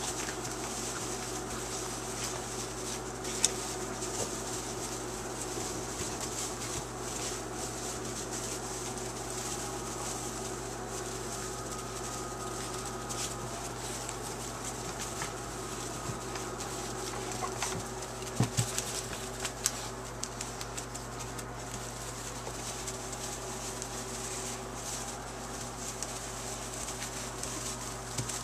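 Puppies scuffling and playing in wood-shavings bedding, with scattered light clicks and rustles over a steady background hum; a flurry of clicks comes about two-thirds of the way in.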